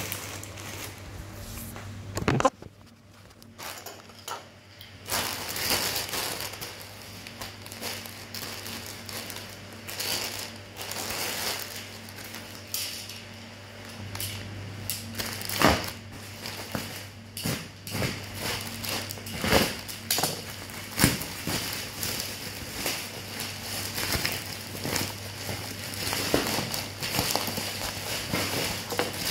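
A parcel's packaging being opened and handled by hand: crinkling and rustling with many scattered clicks and knocks, over a steady low hum.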